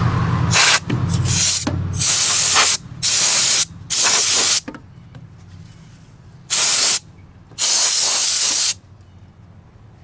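Compressed air blown in about seven short hissing bursts, each up to about a second long. The air is clearing soot and residue from the burner and aperture area of a propane RV fridge.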